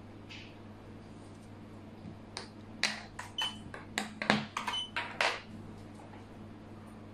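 Xiangqi pieces clacking against each other and the board as a piece is picked up and set down: a quick run of about ten sharp clicks, some with a short ringing tone, the loudest about four seconds in. A steady low hum sits underneath.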